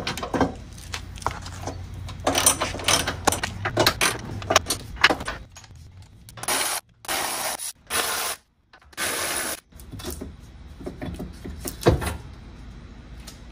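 Hand ratchet with a deep 18 mm socket clicking as the bumper-beam nuts are backed off, in several runs that start and stop abruptly. A single sharp knock near the end.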